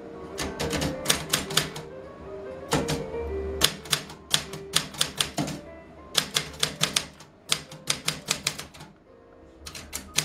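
Portable manual typewriter being typed on: runs of sharp key strikes in quick groups with short pauses between them, over steady background music.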